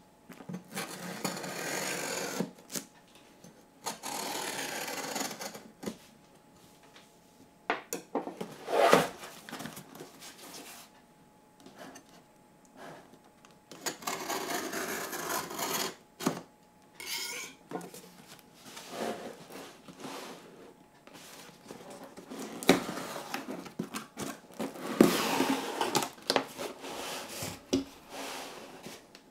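A cardboard box being opened by hand: packing tape peeled and slit with a knife, and cardboard scraping and rubbing in a series of bursts of a second or two, with a few sharp knocks and quiet gaps between.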